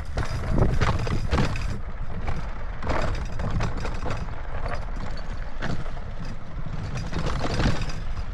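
Mountain bike rolling over a rocky dirt trail: a steady low rumble of tyres and wind on the camera microphone, broken by several clattering jolts as the bike bounces over rocks.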